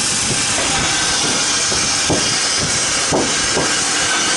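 Homemade shingle-hoist-style compressor lift running as it lowers a load: a steady, loud rushing hiss with no clear pitch.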